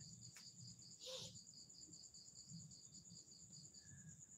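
Faint, high-pitched insect chirping: two even, fast-pulsing trills at once, the lower one stopping shortly before the end. A brief soft rustle about a second in.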